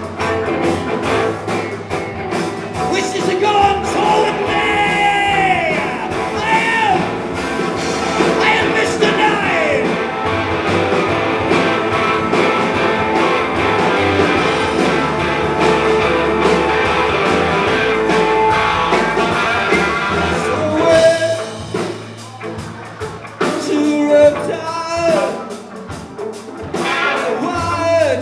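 Live rock band playing, with electric guitars, bass guitar and drums, and a voice singing over them. The music drops back quieter for a few seconds about three quarters of the way through, then picks up again.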